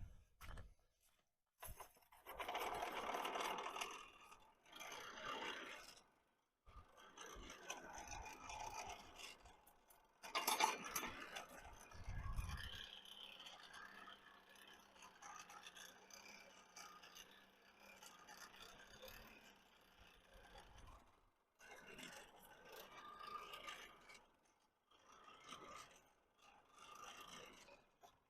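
Repeated scraping strokes on metal, coming in bursts of a second or two with short pauses between.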